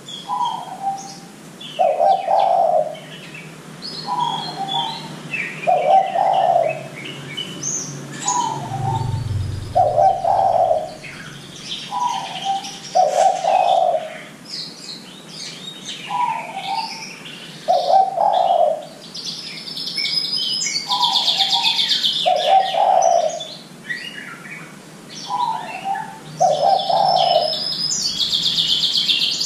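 Spotted dove (derkuku) cooing in a steady repeated series, each phrase a short higher note followed by a longer, lower coo, every couple of seconds. Small birds chirp high over it, and a dense high buzzing comes in about twenty seconds in and again near the end.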